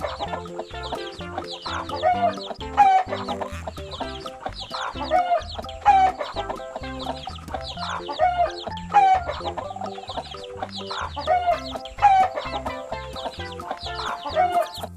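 Hen clucking over and over, with a loud pair of calls about every three seconds, over background music.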